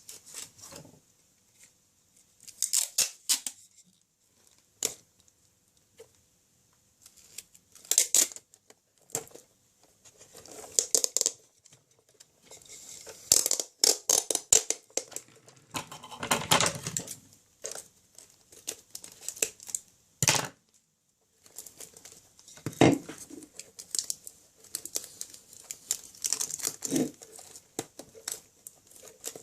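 Sellotape being pulled off the roll and wrapped around an RC car's rear drive wheels: repeated short bursts of tearing, crackling tape with pauses between.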